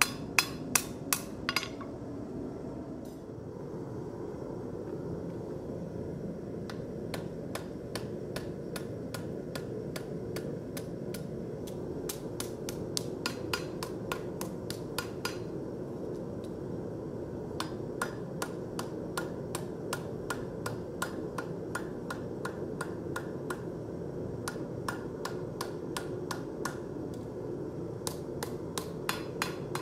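Hand hammer striking a red-hot steel skillet handle on an anvil. A few loud blows come at the start, then runs of quick, lighter blows, about three a second, with short pauses between the runs. A steady low rushing noise runs underneath.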